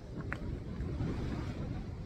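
Steady rush of wind on the microphone over a heavy sea swell surging against the rocks.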